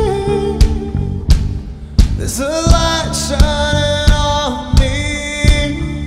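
Live rock band: a male lead vocal sings long held notes, sliding up into a sustained note midway, over a steady drum-kit beat.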